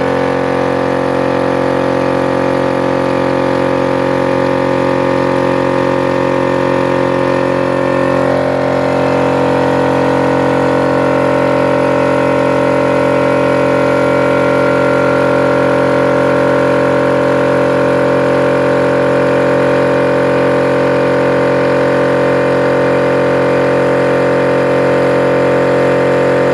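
Multipro DCC-075/10 HS 750-watt electric air compressor running with a steady hum, recharging its tank after cutting back in at 6 bar.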